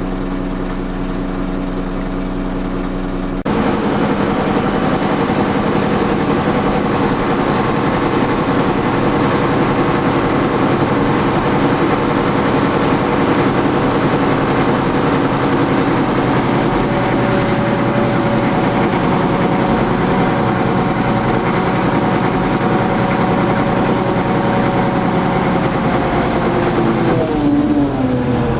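Heavy diesel road-construction equipment engine running under load, with a rumbling, rattling noise. About three seconds in the sound jumps suddenly to a louder, rougher mix, and near the end the engine note falls.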